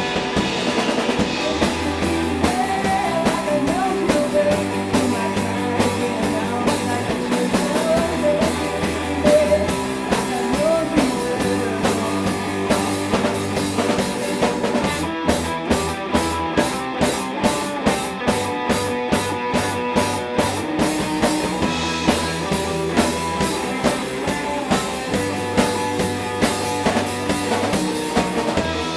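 Rock band playing: a drum kit keeps a steady beat under electric guitar and a bass line that moves between low notes.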